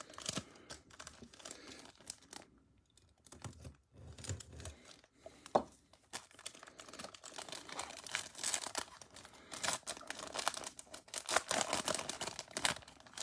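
Foil wrapper of a Bowman Platinum trading-card pack crinkling and rustling as it is opened and handled, in scattered crackles that grow busier over the second half.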